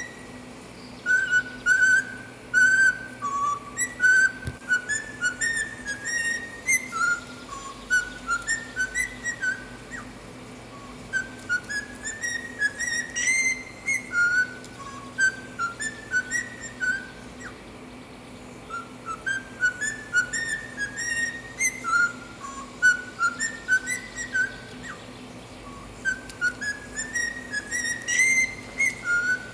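Cockatiel whistling a melody as a run of short, clear notes that step up and down in pitch, with the phrase repeated.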